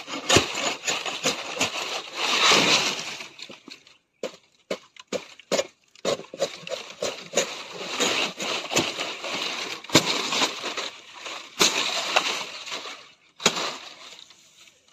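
Sickle blade chopping and scraping at a green palmyra palm leaf stalk: an irregular series of sharp cuts with rough scraping and rustling of the fibrous stalk between them.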